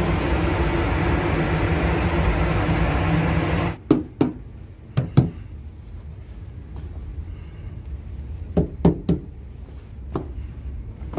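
Steady mechanical hum and rush that cuts off abruptly about four seconds in, followed by a few scattered knocks and clacks.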